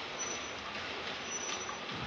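Model trains running on a large-scale layout: a steady whir of small electric motors and wheels rolling on the rails, with a faint high whine that comes and goes.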